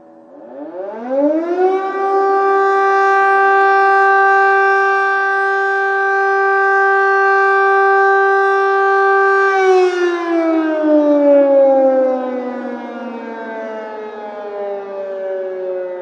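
Air raid siren sounding an alert, one long wail: its pitch climbs over about a second and a half, holds steady for about seven seconds, then slowly winds down.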